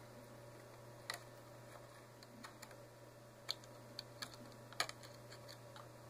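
Faint, light clicks and taps of a laptop's metal heat-pipe heatsink being eased down into place over the CPU, about four clear clicks spread across the few seconds, over a low steady hum.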